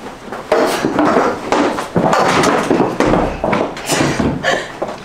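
Loud, irregular banging and clattering: a quick run of hard knocks and slams, like wood and furniture being struck.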